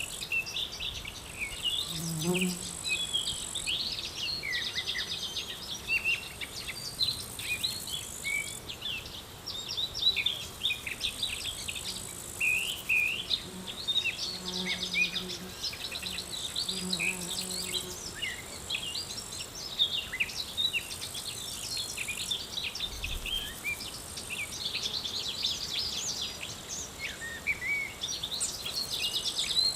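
Outdoor nature ambience: a dense chorus of small songbirds chirping, over a high steady insect trill that starts and stops in stretches of several seconds. A buzzing insect such as a fly or bee passes briefly about two seconds in and again around the middle.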